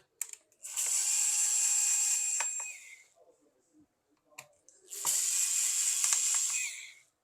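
Small electric screwdriver running in two bursts of about two seconds each, backing out the laptop's bottom-cover screws. Each burst winds down as it stops, and a few small clicks come just before each one.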